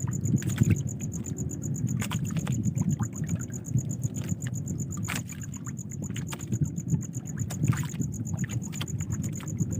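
Water lapping and sloshing against a small boat's hull, with scattered knocks and splashes over a steady low rumble.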